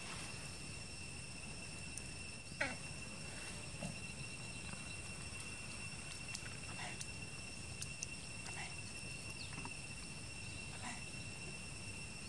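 Steady insect chorus holding a few high, even tones, with about six short calls sliding downward in pitch scattered through it.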